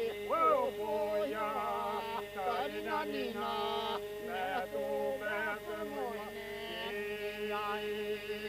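Unaccompanied men's group singing Albanian iso-polyphony: ornamented, wavering melodic lines from the lead singers over a steady drone held by the rest of the group.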